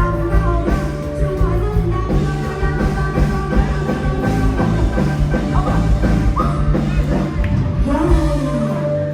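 Live bar band playing a rock song, with a singer over drums, bass and guitar. The bass and drums drop out near the end.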